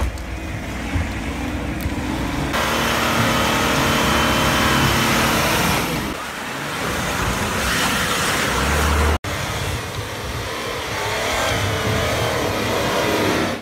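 Nissan Patrol Y60 off-roader's engine running under load and revving as it crawls through deep snow and mud, with the tyres churning the snow and mud. The sound changes abruptly a few times where shots are cut together.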